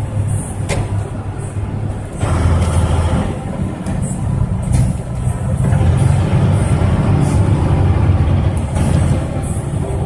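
Big truck's diesel engine pulling on the road, heard from inside the cab as a steady low drone that grows louder about two seconds in, with a few sharp rattles from the cab.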